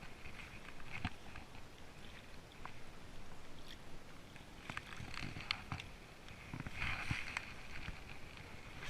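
Irregular water splashing and sloshing with scattered small knocks and clicks, busiest about two-thirds of the way through.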